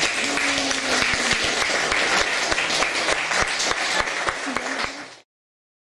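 Audience applauding, with a voice or two heard among the clapping. The applause fades and cuts to silence about five seconds in.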